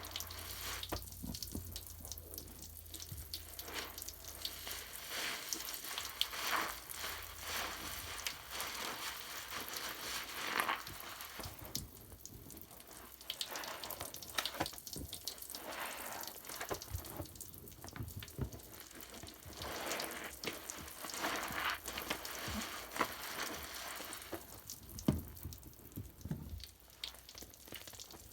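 Bath foam and bubbles crackling and fizzing: a dense run of tiny pops that swells louder and fades again several times.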